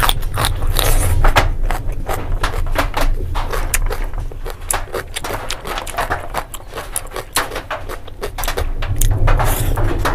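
Close-miked eating sounds: a cucumber slice bitten and crunched, then chewing with many short wet clicks and crackles, denser at first and again near the end. A steady low hum runs underneath.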